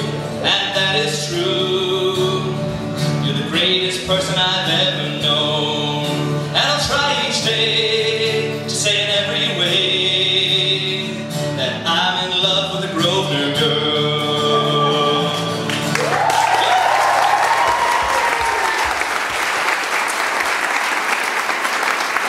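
A man sings with a strummed acoustic guitar until the song ends about sixteen seconds in. Applause then breaks out, with a cheer over it.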